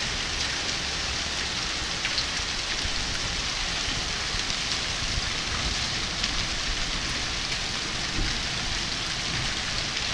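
Heavy rain with hail pelting a paved parking lot: a dense, steady hiss of downpour with scattered sharp ticks of hailstones striking the ground.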